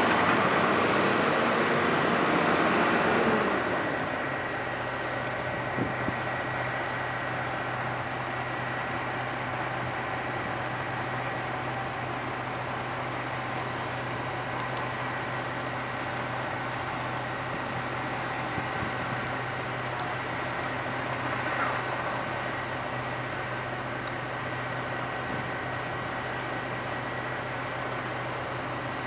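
Kobelco excavator's diesel engine running steadily at idle, a low hum with a thin high whine over it. It is louder and rougher for the first few seconds, then settles.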